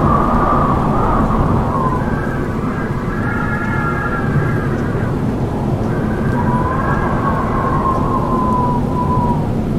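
Strong wind howling: a deep, steady rumble with whistling tones riding over it that rise and fall in pitch, swelling at the start, in the middle and again later on.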